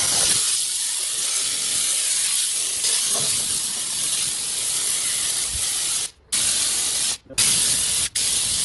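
Compressed-air oil sprayer on an air compressor spraying thin H32 oil in a loud, steady hiss, cut off briefly about six and seven seconds in, then in a few short bursts near the end.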